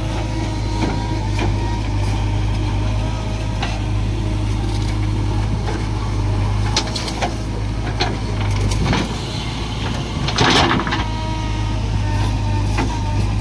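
Heavy diesel engines of a backhoe loader and a tractor running steadily, with scattered knocks and clanks and a louder rushing burst about ten seconds in.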